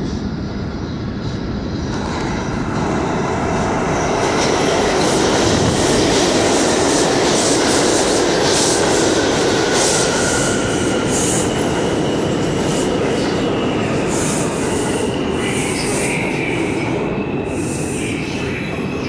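R142 subway train pulling into the station: a steady rumble of wheels on rail that swells over the first few seconds, with high wheel squeal from about eight seconds in.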